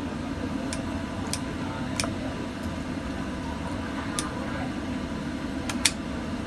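A knife chopping steamed chicken on a cutting board: about seven sharp knocks at uneven intervals, the loudest near the end, over a steady low hum.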